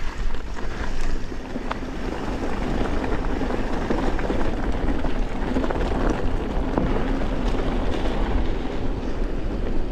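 Wind buffeting the microphone over the rolling rumble of a YT Capra Core 3 MX mountain bike ridden on a trail, with a few faint rattles and clicks.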